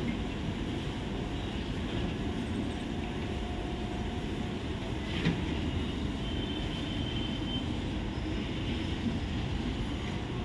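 Express train coaches rolling slowly along the track, a steady low rumble of wheels on rails. One sharp clank comes about five seconds in, with a faint high squeal shortly after.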